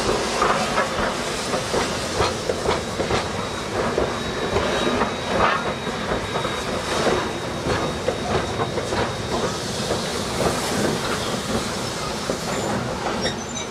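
Steam train on the move: locomotive exhaust beats and steam hiss over the clatter of wheels on the rail joints.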